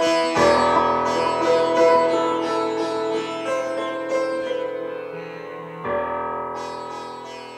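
Instrumental background music: a plucked string melody over a sustained drone, gradually fading out.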